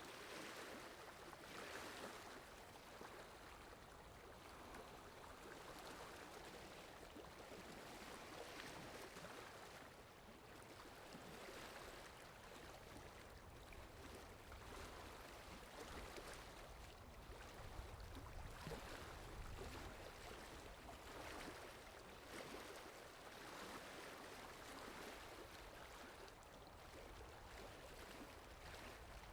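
Faint water ambience sound effect: a steady wash of flowing water that swells and eases every few seconds.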